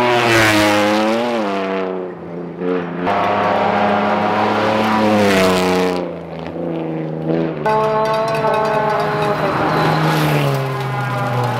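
Rally car engines revving hard at full throttle, the engine note climbing and falling as the cars power through the stage. The sound changes abruptly several times, from one car or pass to the next.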